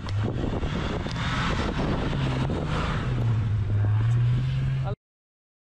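Off-road SUV engine working hard, its pitch climbing steadily over about four seconds under a rushing noise. The sound cuts off abruptly about five seconds in.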